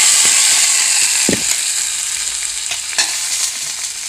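Hot coconut-oil tempering of mustard seeds, dried red chillies and curry leaves sizzling as it is poured into a pot of tomato curry. The sizzle slowly dies down, with a few light knocks.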